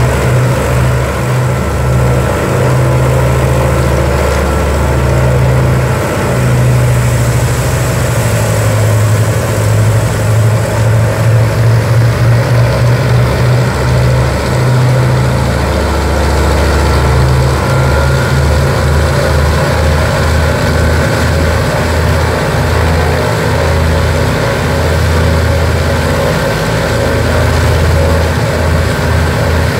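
Consolidated PBY-5A Catalina's Pratt & Whitney R-1830 Twin Wasp radial engines idling on the ground, with a deep, uneven throb that waxes and wanes.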